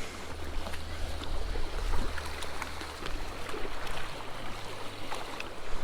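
Small creek water flowing and trickling, with scattered small clicks and a low rumble that fades about halfway through.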